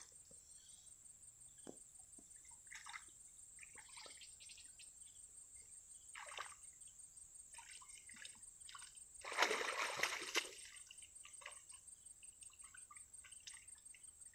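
Hands groping through shallow, muddy paddy water, making small scattered splashes and trickles, with a louder run of splashing about two-thirds of the way through.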